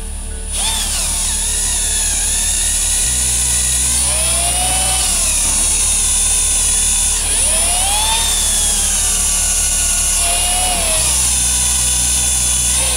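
A 12-volt cordless drill runs steadily, boring a small pilot hole through sheet metal, with a high motor whine. The bit squeals on the metal, its pitch swooping up and down several times as it cuts.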